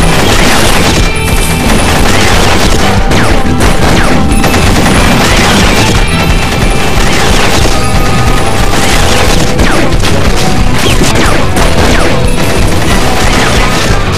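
Rapid gunfire sound effects and crashes mixed over loud, dense action music.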